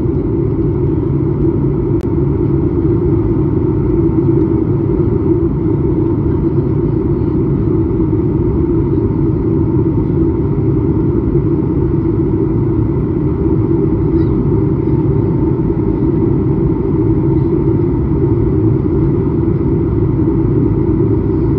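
Steady low roar inside a jet airliner's cabin in flight: engine and airflow noise heard at a window seat, with a faint steady high whine over it.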